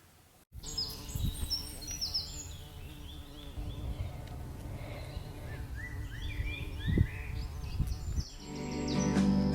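Outdoor ambience: a steady low rumble with small birds chirping in short falling notes. Soft guitar music fades in near the end.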